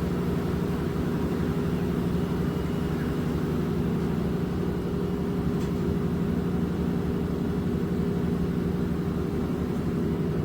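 Steady low machine hum from a running commercial laundry machine, even and unchanging throughout.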